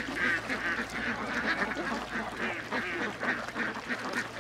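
Ducks quacking in a rapid, continuous run of short calls, about three a second.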